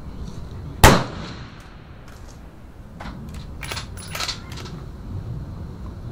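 A single shot from a Bergara HMR Pro bolt-action rifle in 6.5 Creedmoor about a second in, with a short decaying echo. Around three to four seconds in come several light metallic clicks of the bolt being worked to eject the case and chamber the next round.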